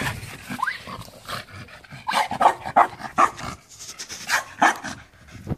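Dog barking: a quick run of sharp barks from about two seconds in, after a short rising whine near the start.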